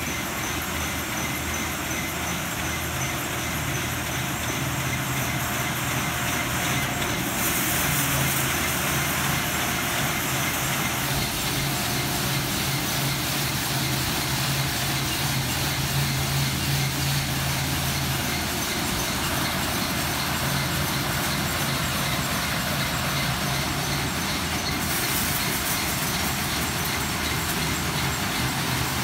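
Specialty Equipment Futura Millennium touchless automatic car wash running a high-pressure spray pass: a steady hiss of water jets over the low hum of the pump. The spray gets harsher about seven seconds in and eases again near the end.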